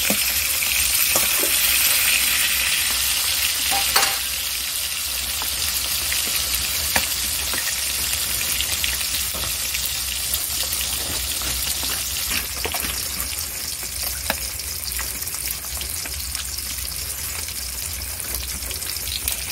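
Pieces of silver carp sizzling steadily in hot oil in a metal kadai, nearly fully fried and browned, with a few sharp clicks along the way.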